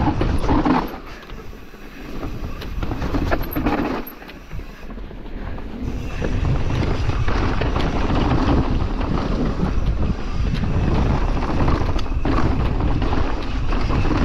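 Mountain bike ridden fast down a trail: wind buffeting the microphone over tyre noise and the rattle of the bike on rough ground. There are two short lulls in the first few seconds, then steady riding noise.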